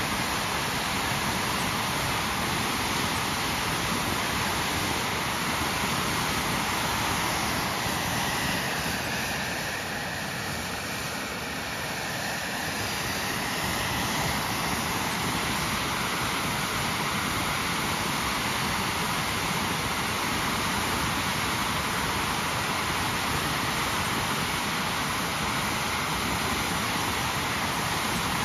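TS-11 Iskra jet trainer's single turbojet engine running steadily on a ground engine test, an even rushing noise. About a third of the way in it eases slightly for a few seconds with a faint whine, then steadies again.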